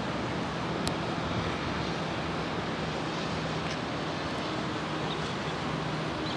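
Steady noise of road traffic with a steady low hum.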